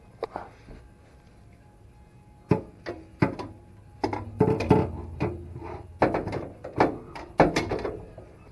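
Metal clanking and knocking as a 60 mm exhaust cutout is worked onto the cut exhaust pipe of a Mk5 Jetta. The irregular knocks start about two and a half seconds in, some with a brief metallic ring.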